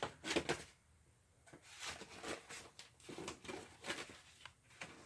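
Faint, scattered clicks and rustles of packaging and a padlock being handled.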